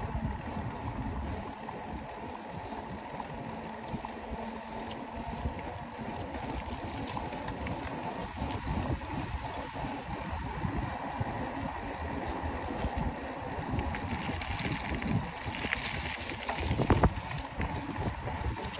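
Wind rushing over the microphone of a phone mounted on a bicycle's handlebars while the bike is ridden along a paved road, a steady low rumble.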